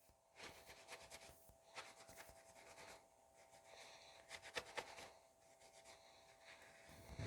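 Faint rubbing and light scratching of a rag wiping steel knife blades with acetone, cleaning off old blue paint before heat treat, with a faint steady hum underneath.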